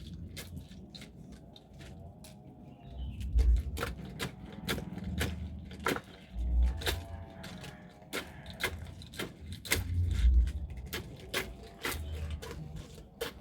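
Traditional hand-worked corn sheller stripping kernels: irregular clattering clicks of kernels coming off the cob, heavy low thumps now and then, and a wavering creak from the mechanism every couple of seconds.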